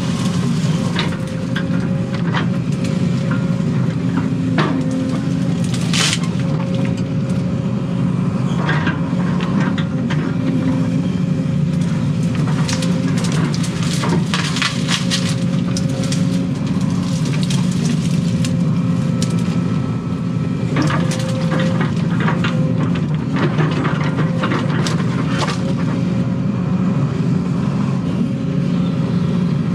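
Excavator diesel engine running steadily under hydraulic load, heard from inside the cab, with repeated cracks and snaps of brush and saplings being broken and pushed by the bucket.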